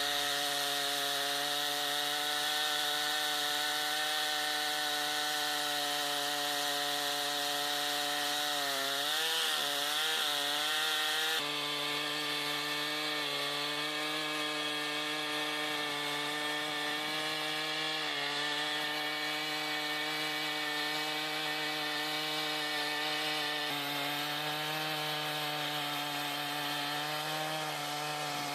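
Large chainsaw running near full throttle while cutting through a big sequoia log, its engine note steady. The pitch dips and wavers briefly about nine to ten seconds in, and the sound level drops abruptly a little after that.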